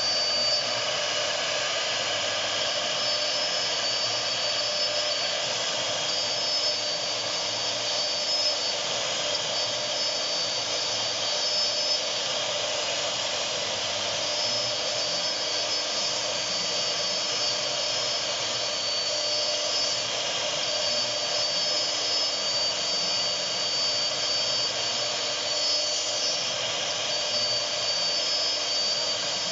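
CNC router spindle running with its bit cutting grooves into a board: a steady rushing noise under a high whine that briefly drops out here and there.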